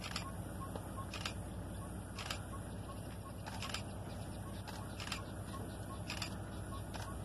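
Steady low hum of an idling vehicle engine. Over it, a bird calls in short, sharp notes about once a second.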